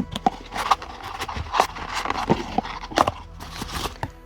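Hands unwrapping packaging and handling small jars: irregular rustling with a quick series of sharp taps and knocks.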